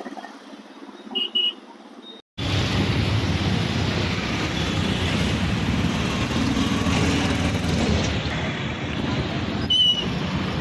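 Road traffic noise: a steady rush of engines and tyres from vehicles passing close by, starting abruptly after a short dropout about two seconds in. Before it the background is quieter, with two short high beeps, and another short beep comes near the end.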